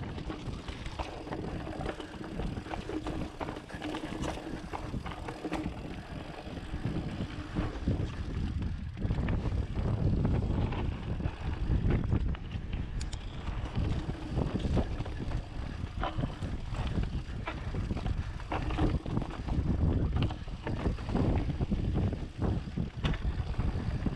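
Rocky Mountain Instinct full-suspension mountain bike descending rocky dirt singletrack: tyres rolling over dirt and stones, with frequent clicks and knocks of the bike rattling over rocks, under steady wind rumble on the microphone. The knocks get busier about a third of the way in.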